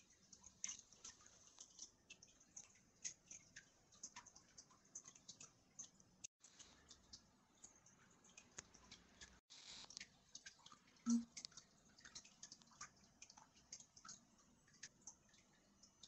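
Quiet room tone with many faint, irregular small clicks and ticks, and one louder short knock about eleven seconds in. The sound cuts out completely for a moment twice.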